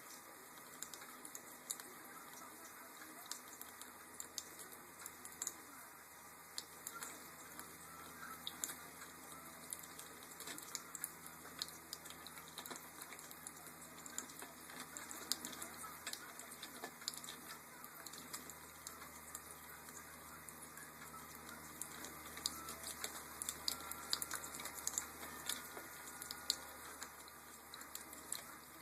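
Green-cheeked conure bathing in water in a toy boat: a faint, continuous patter of small splashes and clicks, getting busier in the last third.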